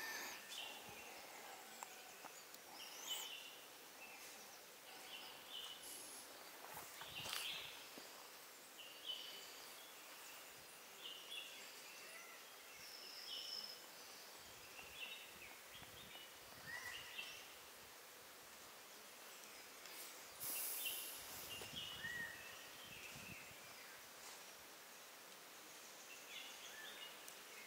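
Faint forest ambience with scattered short bird chirps and calls, and a few brief clicks.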